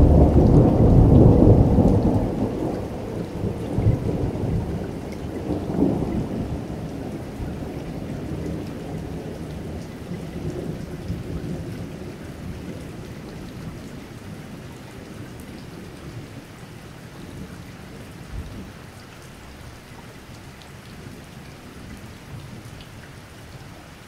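Thunder rumbling over steady rain, loudest at the start with further rolls about four and six seconds in, then fading away and leaving the rain going on its own.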